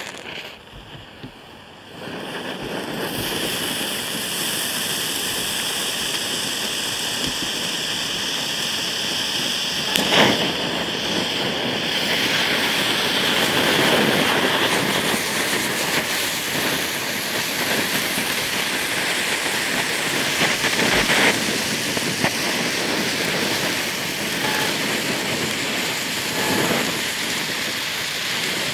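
Ground firework fountains burning on a board, a steady loud hiss of spraying sparks that builds up about two seconds in, with a sharp crack about ten seconds in and another around twenty.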